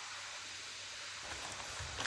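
Steady faint hiss of room tone with a low hum, and faint low rumbling coming in about halfway through.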